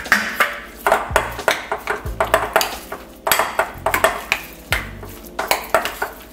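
Metal spoon clinking and scraping against a glass mixing bowl while stirring and mashing a thick tempeh, spice paste and egg mixture, with quick, repeated clinks several times a second.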